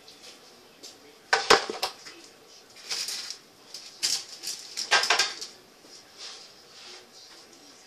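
Metal biscuit cutter and baking tray clattering against the worktop in about four short knocks and rattles, the loudest about a second and a half in.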